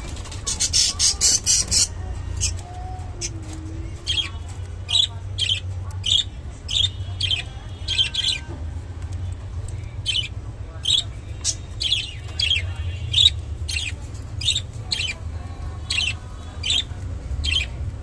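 Budgerigars chirping in short, sharp calls, about two a second, with a quick high chatter near the start.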